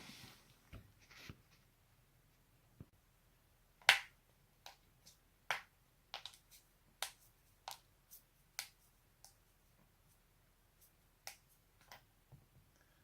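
Human joints cracking: about a dozen sharp, separate pops at uneven intervals, the loudest about four seconds in, then a run of smaller cracks that thins out toward the end.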